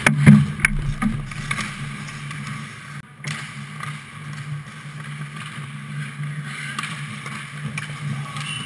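Ice hockey play close to the goal: several sharp clacks of sticks and puck in the first second or so, the loudest just after the start, then the scrape of skates on ice over a steady low hum.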